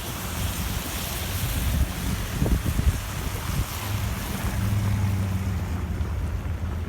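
Snowstorm wind buffeting the microphone: a continuous low rumble with hiss above it, a few short low thumps about two and a half seconds in, and a steady low hum swelling in the middle.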